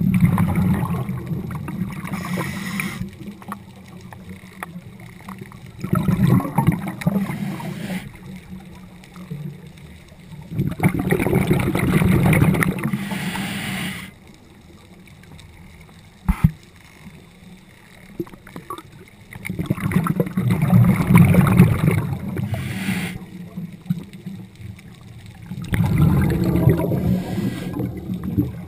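Scuba regulator breathing heard underwater: five long bubbling bursts of exhaled air, each two to three seconds long and several seconds apart, with quieter stretches between. A single sharp click comes about halfway through.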